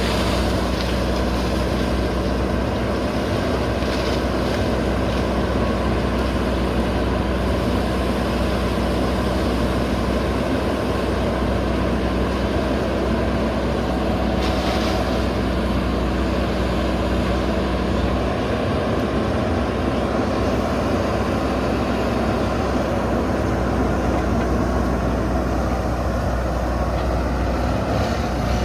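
JCB backhoe loader's diesel engine running steadily, with a shift in its low hum about two-thirds of the way through.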